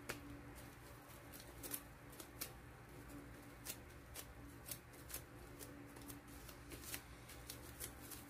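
Plastic cling wrap crinkling under the hands as a sneaker sole wrapped in it is handled and turned: faint, scattered crackles and rustles.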